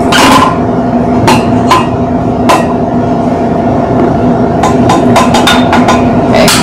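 Stand mixer motor running with a steady hum while its beater turns through flour in a steel bowl, broken by irregular sharp knocks and clacks as cubes of cold butter are dropped in and struck.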